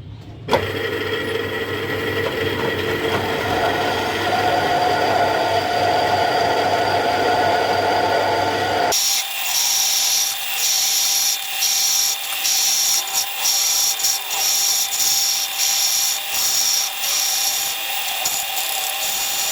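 A metal lathe starts about half a second in with a sharp click and runs with a steady hum. About nine seconds in, the sound changes abruptly to a high scraping hiss that breaks off and resumes many times as the cutting tool faces the flywheel.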